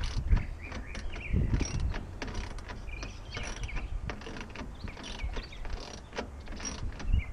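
Irregular clicking and scraping of hand tools and metal fittings as the rails of a tonneau cover are clamped in at the front of a pickup bed, over a steady low rumble.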